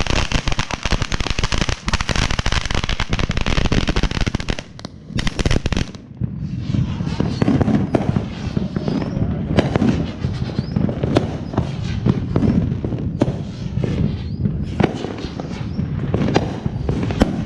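A TNT Short Stack ground firework sprays sparks with a dense, hissing crackle that stops about six seconds in. Aerial fireworks follow, popping and banging in the sky with a few short whistles.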